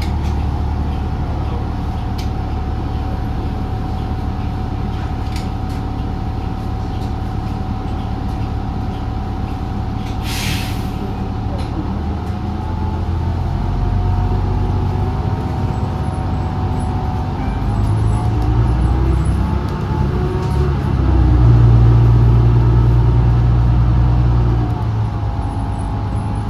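New Flyer XDE40 diesel-electric hybrid bus heard from on board: the drivetrain runs with a low drone and a steady whine. A short air hiss comes about ten seconds in, typical of the air brakes. The drivetrain gets louder in the second half, loudest a few seconds before the end.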